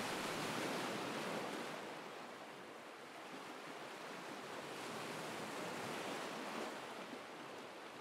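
Ocean surf washing on a shore: a steady wash of breaking waves that eases back and swells again over a few seconds. It is a faint recorded backing track.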